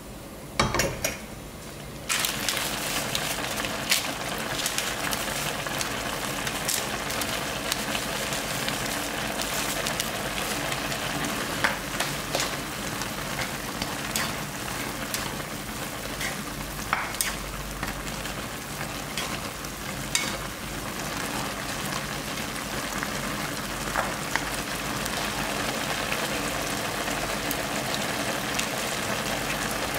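Chapagetti noodles and black-bean sauce sizzling in a frying pan, with chopsticks clicking against the pan now and then as they stir. The sizzle starts suddenly about two seconds in and then holds steady.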